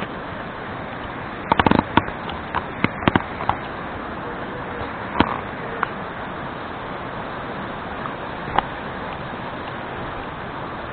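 Steady rushing noise with a cluster of sharp clicks and knocks about one and a half to three and a half seconds in, and single knocks later.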